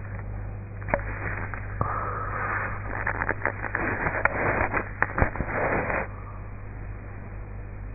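Sleeping woman snoring through a half-open mouth: one long rasping breath, with crackling clicks in it, from about two to six seconds in. A steady electrical hum runs underneath.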